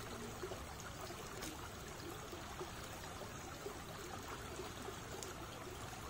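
Shallow creek running over stones and gravel: a low, steady rush of flowing water.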